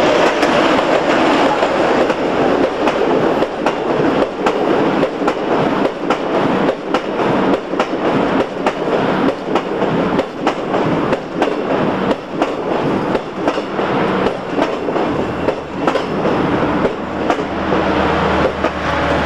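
Catalan Talgo train rolling past at low speed, its wheels clicking over rail joints in a long run of clicks, with a low steady hum setting in near the end.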